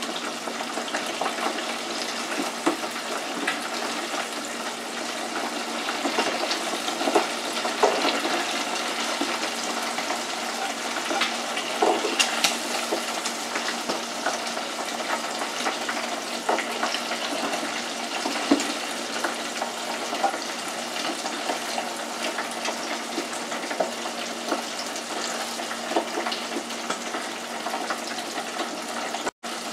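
Hot oil sizzling and bubbling steadily in a small electric deep fryer as shrimp and vegetable tempura fry, with occasional light clicks and taps from tongs and a plate.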